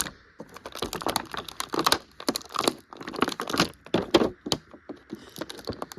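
Stiff plastic action-figure packaging crinkling and crackling in quick irregular clicks as the figure's spare hands are pried out of it.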